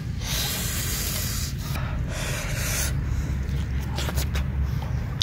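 Close-up eating of a charred roast chicken: rough rubbing and rustling noise over a low rumble, then a few sharp clicks of chewing near the end.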